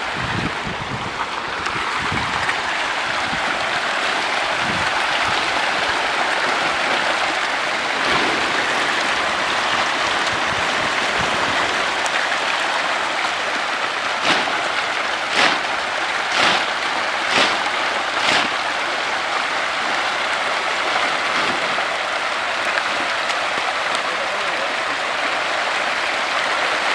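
Dense, steady splashing and churning of a huge mass of farmed catfish thrashing at the pond edge as they feed on pellets. About halfway through, five sharper slaps stand out, roughly a second apart.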